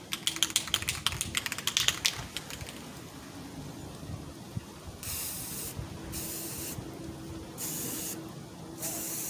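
A Krylon Fusion aerosol spray-paint can: its mixing ball rattles quickly as the can is shaken for about two seconds, then it gives four short hisses of spray, each under a second long.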